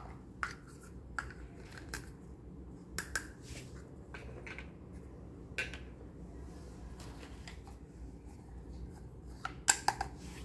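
Small plastic toy teacups and saucers being set down and handled, giving light scattered clicks and taps, with a quick run of sharper plastic clacks near the end as cups are picked up together.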